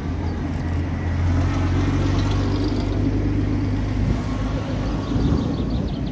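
Engine of a WWII-era military vehicle passing in a convoy: a low, steady drone that eases off about four seconds in.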